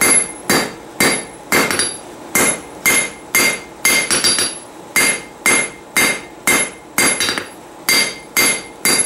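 Hand hammer striking a red-hot 3/8-inch rebar bar on an anvil in a steady rhythm of about two blows a second, each blow with a clear metallic ring: the bar is being drawn out under the hammer.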